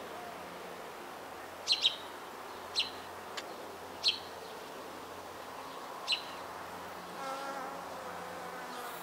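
A honeybee's wings buzz in a brief wavering hum about seven seconds in as the bee takes off. Earlier come a few short, sharp, high chirps.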